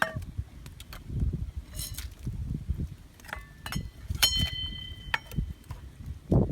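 Metal objects clinking together a few times, each clink ringing briefly; the clearest rings about four seconds in, over low knocks and handling noise.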